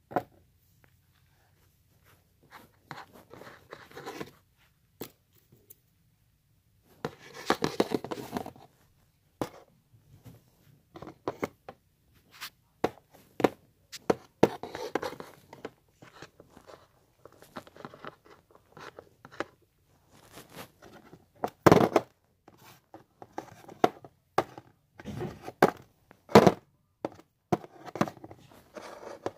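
Small plastic toy figures and toy furniture being handled on a tabletop: scattered clicks, taps and scrapes with stretches of rustling, and a louder knock about two thirds of the way through.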